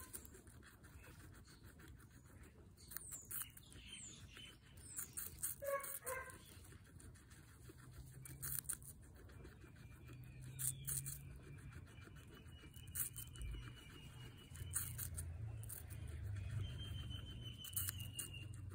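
Guinea pig biting and chewing a slice of raw apple: crisp, irregular crunching clicks in short clusters.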